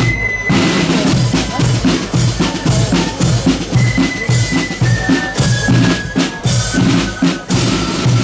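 Marching band playing: snare and bass drums beating a steady rhythm under a high, held melody line.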